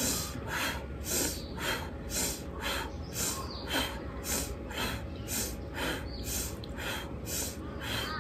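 A woman's rapid, forceful pranayama breathing: sharp inhales through the nose alternate with exhales through an O-shaped mouth, in an even rhythm of about two breath strokes a second.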